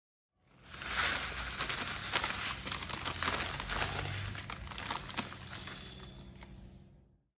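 Dry, crisp kunafa vermicelli poured from a crinkling plastic packet into a glass bowl: a dense rustle of strands pattering onto the pile, with many small ticks, tapering off near the end.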